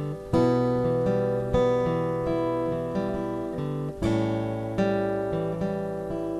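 Acoustic guitar strumming chords in a slow, steady rhythm, each strum ringing out before the next.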